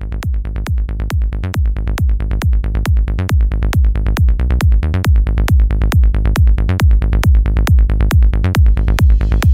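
Electronic dance music soundtrack with a steady, fast kick-drum beat and bass, growing louder as it fades in; a hissing swell builds near the end.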